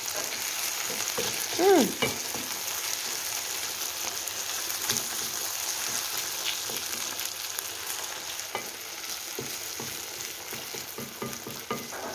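Chopped onions and green vegetables sizzling as they fry in oil in a stainless steel pan, stirred with a wooden spoon that scrapes and taps against the pan, more busily near the end. A brief rising-and-falling tone sounds about two seconds in.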